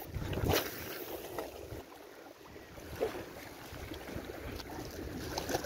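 Sea surf washing and breaking against shoreline rocks, with wind rumbling on the microphone and a couple of brief louder swells.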